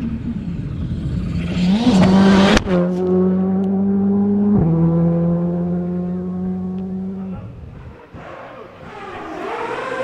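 Rally car engine at high revs: it climbs in pitch, gives a sharp crack about two and a half seconds in, then holds steady and drops in pitch suddenly with a gear change about four and a half seconds in. It fades out around seven seconds in, and another engine rises near the end.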